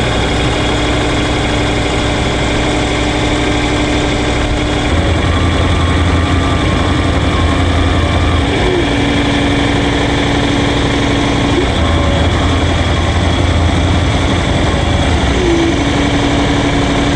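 A small boat's engine running steadily, driving the hydraulic winches that haul in Danish seine ropes. Its note steps down and back up a few times while the low hum swells and eases.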